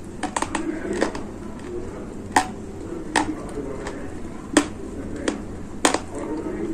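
Dry gray clay crunching and cracking: about eight sharp, irregularly spaced snaps, the loudest a few seconds apart.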